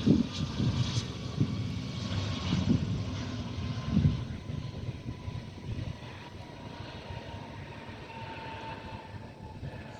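Boeing 767 freighter's jet engines passing on approach and receding: a rumble that fades over several seconds, with an engine whine slowly falling in pitch.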